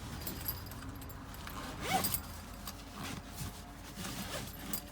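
Fabric tool pouches packed with tools being pushed into a tool bag: cloth rustling and scraping in short strokes, with the metal tools inside clinking.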